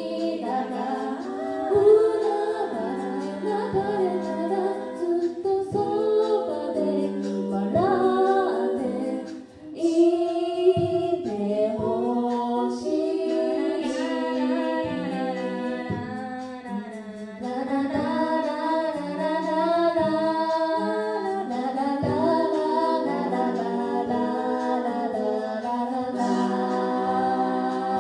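Six-voice female a cappella group singing in harmony into handheld microphones, several lines layered over a sung bass line. The voices drop away briefly about a third of the way in, then come back strongly.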